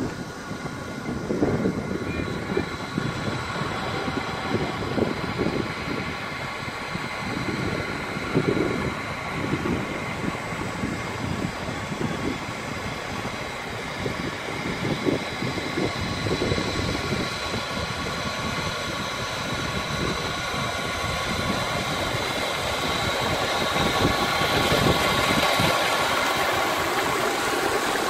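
An engine running steadily, with wind gusting on the microphone. Rushing water from a pipe outlet into an irrigation channel grows louder near the end.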